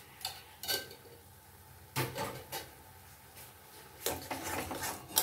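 Spatula scraping and knocking against a metal kadai as a mashed potato filling is stirred: a few separate scrapes at first, then steadier stirring from about four seconds in.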